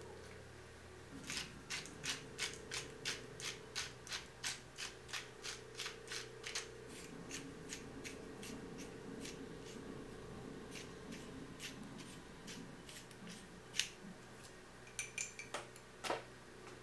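Hand-twisted salt or pepper grinder working: a quick, even run of grinding clicks, about three a second, then slower, scattered clicks. Near the end come a few sharper clinks from a glass jar being handled, over a faint steady hum.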